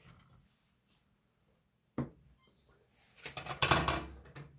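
Workbench handling noises: a single sharp click about two seconds in, then a burst of rustling and clicking near the end as parts are picked up and handled.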